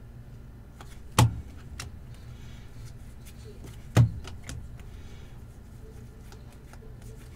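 Trading cards being handled and sorted by hand: small flicks and clicks, with two sharp knocks, one about a second in and one about four seconds in, over a steady low hum.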